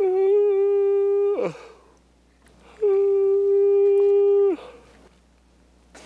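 A man's loud, drawn-out vocal yawns, two in a row, each held on one steady note for about a second and a half before dropping off.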